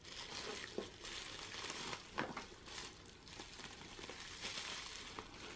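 Shredded-paper packing filler and bubble wrap crinkling and rustling as they are pulled off a small wrapped item by hand, with a few sharper crackles.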